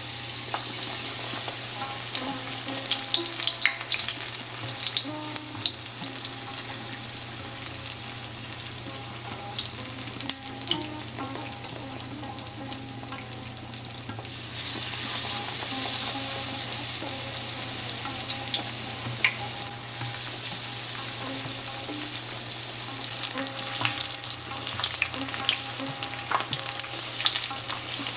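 Chickpea-batter-coated eggplant slices sizzling as they deep fry in hot oil in a frying pan: a steady hiss full of small crackling pops. It swells as the first slice goes into the oil and again about halfway through.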